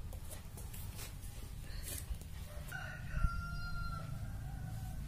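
A bird calls once, a long call held at one steady pitch for over a second, starting a little past halfway. Faint clicks and a soft knock come around it.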